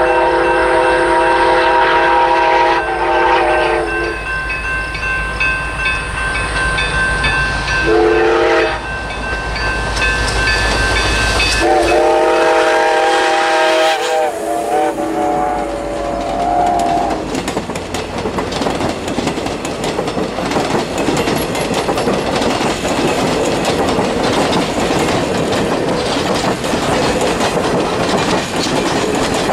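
Grand Canyon Railway No. 29's steam whistle blows a chord of several tones in four blasts as the locomotive approaches with a low rumble: one long blast, a short one, then two more long ones. After that the passenger cars roll past, their wheels clicking over the rail joints.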